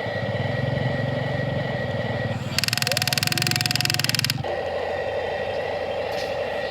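Radio-controlled model excavator's electric motors and hydraulic pump whirring steadily. For nearly two seconds in the middle a louder, harsh rapid buzz joins in, then stops.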